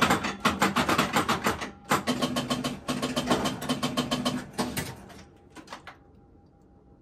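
A 1962 Gottlieb Flipper Clown electromechanical pinball machine's relays, stepper units and score reels clicking rapidly in two long runs, with a low steady motor tone under the second. Near the end a few last clicks come, then only a faint hum.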